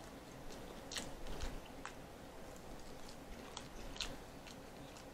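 Close-up chewing and biting of air-fried chicken thighs with crunchy skin: quiet mouth sounds with a few short crisp clicks, the loudest about a second in and again near four seconds in.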